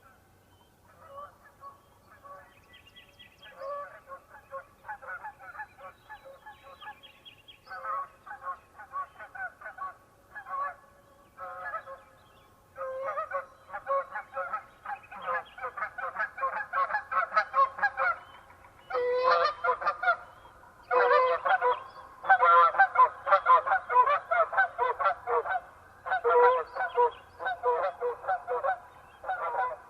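A flock of geese honking in flight, many calls overlapping. The calls start sparse and grow louder and denser about halfway through as the flock comes close.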